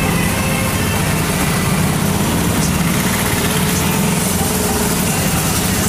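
Auto-rickshaw engine running steadily, heard from inside the cabin as a continuous low throb with road and street noise.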